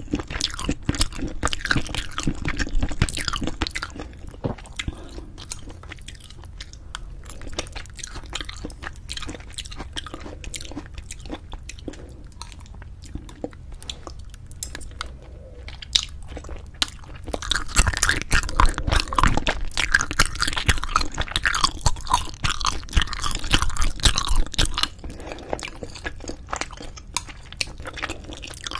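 Close-miked chewing of braised spicy chicken with cheese: wet, sticky mouth sounds with soft crunches. They are quieter for a stretch, then louder and busier for several seconds before easing again near the end.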